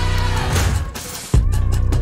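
Pop music with a heavy bass beat. The beat drops out briefly about a second in, then comes back in with a hard kick.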